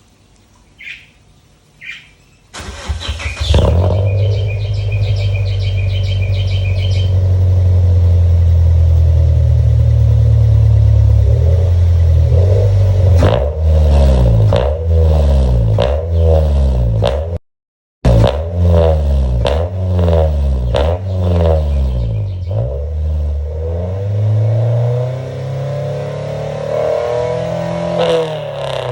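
Car engine breathing through a Kakimoto GTbox muffler: after two short chirps it cranks and starts, settles into a steady loud idle, then is blipped repeatedly, each rev rising and falling back.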